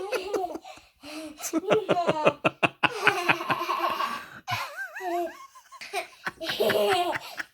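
A young child laughing in a run of quick, repeated bursts, with more giggly vocal sounds after.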